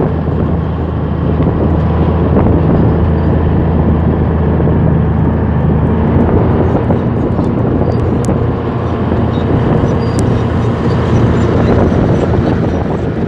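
Komatsu D155A crawler bulldozer's diesel engine running steadily with a constant deep hum. A few faint ticks sound in the second half.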